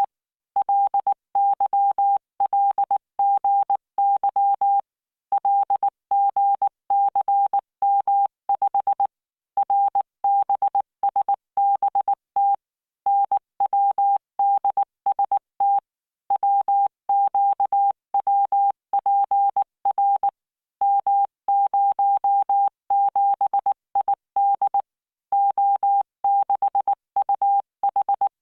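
Computer-generated Morse code practice audio: a single-pitch beep keyed into dots and dashes at 19 words per minute, sent in groups with short pauses between them.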